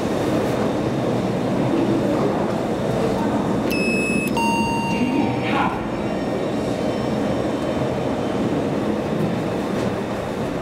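Steady background noise of a railway station hall. About four seconds in, a two-note falling electronic chime sounds: a short high note, then a longer lower one.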